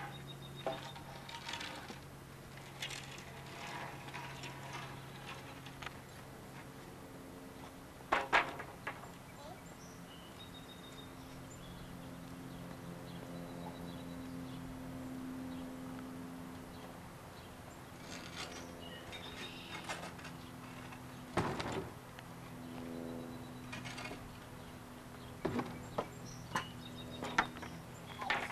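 Long wooden poles knocking and scraping against a concrete patio as a toddler lifts and drags them: a few scattered sharp knocks, with a cluster of them near the end, over a steady low hum.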